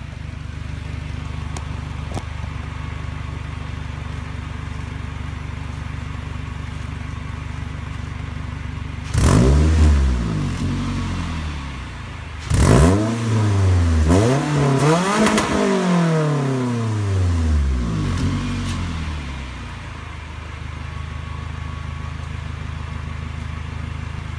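Scion tC's 2.5-litre four-cylinder engine idling, revved several times in quick succession through the middle, then settling back to a steady idle. The exhaust is leaking on purpose at a gap spaced with washers between the pipe and the muffler, which lets sound escape before the muffler for a louder, deeper note.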